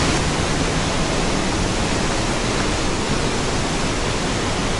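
A waterfall in full flood after heavy rain, plunging down into a rock cave: a loud, steady rushing roar of water.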